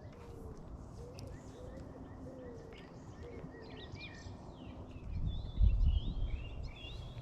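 Small birds chirping and singing outdoors, with a faint wavering low tone in the first half. From about five seconds in, loud low rumbling thumps break in.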